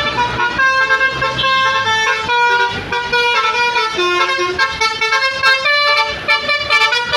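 Basuri telolet multi-tone bus horn playing a fast tune: loud held horn notes stepping up and down in pitch, several per second.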